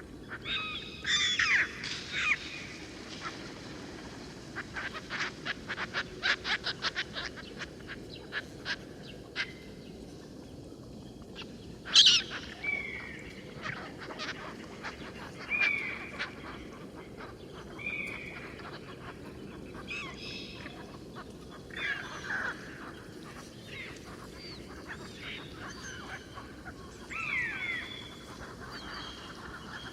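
Birds calling. A quick rattling series of notes comes a few seconds in, a loud call about twelve seconds in, and after that short calls every couple of seconds.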